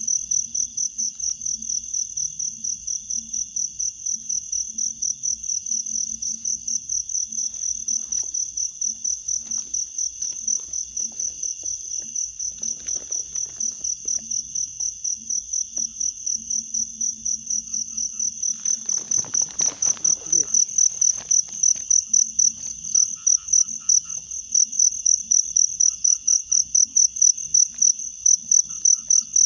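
A cricket chirping in a steady, fast pulsing trill, about four to five high pulses a second, without a break. About two-thirds of the way through there is a brief rustle lasting a couple of seconds.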